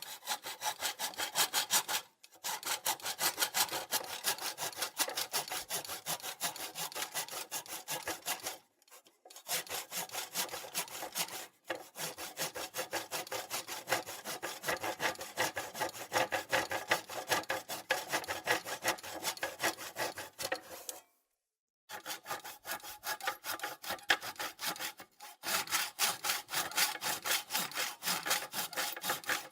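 Handsaw cutting through wood in quick, steady back-and-forth strokes, stopping briefly a few times before carrying on.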